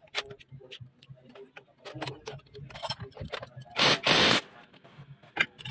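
Cordless impact wrench run in two short bursts about four seconds in, working a bolt on a diesel injection pump, among scattered clinks and knocks of metal tools on the engine.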